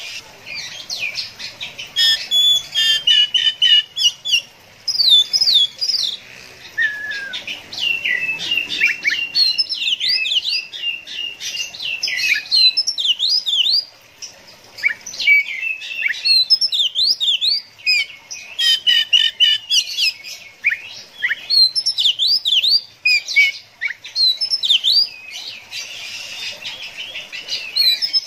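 Oriental magpie-robin singing a long, fast and varied song of clear whistles, sharp rising and falling notes and trills, with brief pauses about halfway through and again near the end.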